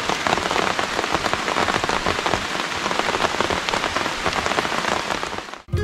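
Rain falling in a dense, steady patter of drops. It cuts off suddenly near the end.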